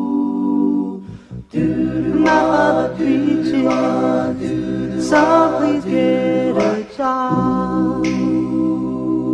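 Music: an a cappella vocal group singing in close street-corner harmony. A held chord breaks off about a second in, then the voices go on singing moving notes.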